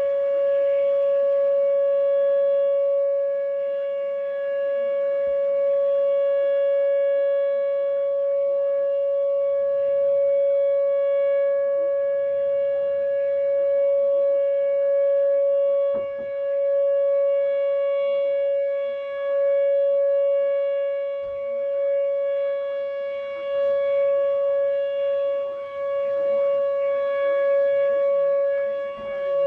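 Outdoor tornado warning siren sounding a steady, unchanging tone with a buzzy stack of overtones, its loudness dipping briefly now and then.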